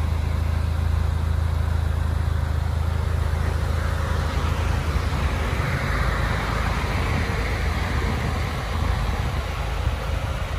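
Car running: a steady low rumble, with a broader hiss swelling from about five to eight seconds in.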